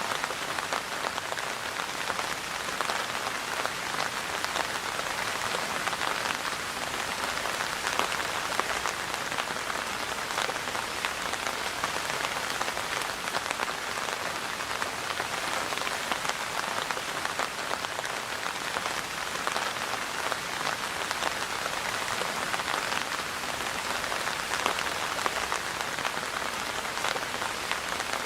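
Steady rainfall pattering on a surface, a dense even hiss of many small drop impacts with no letup.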